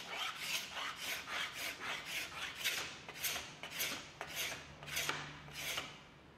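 Steel card scraper drawn repeatedly across a hard angelim-pedra bed rail, scraping off old glue residue down to bare wood. The strokes are short and scratchy, about two or three a second, and stop shortly before the end.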